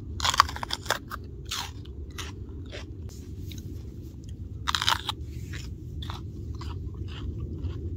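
A person biting and chewing a raw, ripe pepper fresh from the plant, with crisp, irregular crunches; the loudest bite comes a little past the middle.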